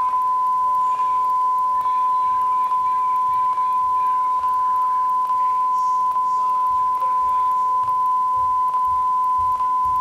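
A steady, loud, high-pitched tone from a VHS tape playing back at its end, over a white screen, with a faint click repeating a little more than once a second.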